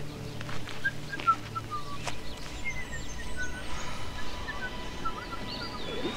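Wild birds chirping outdoors in short, scattered calls, with a single sharp click about two seconds in.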